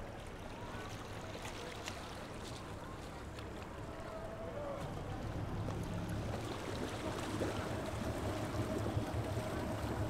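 Motorboat engine running, a low hum that grows louder from about halfway through as the boat comes close.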